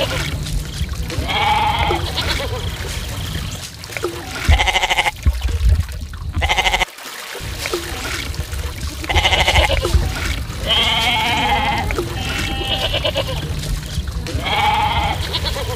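Goats bleating again and again, quavering calls about every two seconds, over a steady low rumble.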